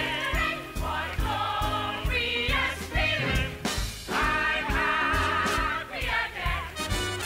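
Show-tune music from a stage musical: several voices singing together over a steady beat.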